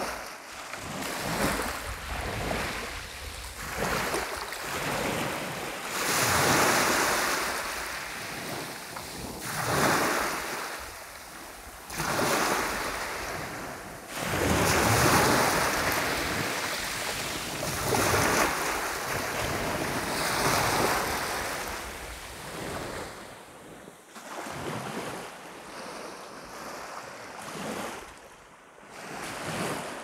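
Black Sea surf washing onto the shore, swelling and falling back every few seconds.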